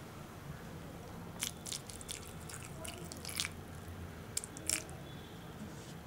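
Faint scattered drips and small wet clicks over a low steady hum, as water is added to coarsely ground peanut mixture in a stainless-steel mixer-grinder jar; the grinder itself is not running.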